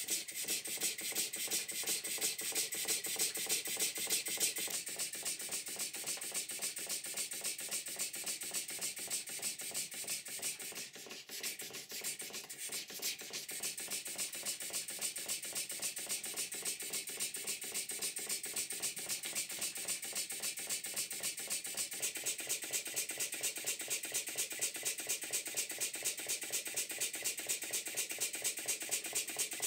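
Stuart Models No. 9 horizontal model steam engine running fast on compressed air: a rapid, even mechanical clatter of several beats a second. The engine is badly worn, with play in the crosshead, small end and big end brasses.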